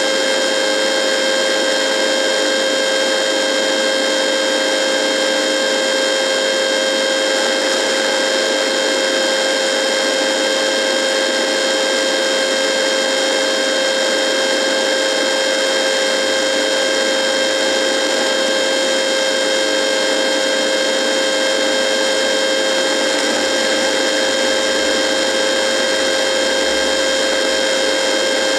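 Radio buzz: a steady electrical buzz made of several fixed tones, the strongest a mid-pitched hum, over an even hiss, holding unchanged throughout.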